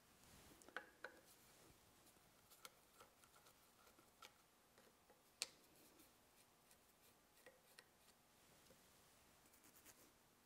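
Faint, scattered metallic clicks and ticks of a screwdriver working against the metal head housing of a DoAll drill press, the sharpest click about five seconds in.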